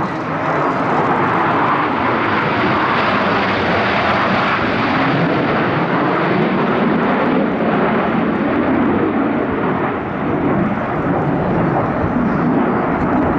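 Blue Angels display aircraft flying over, a loud steady engine noise with a slight dip about ten seconds in.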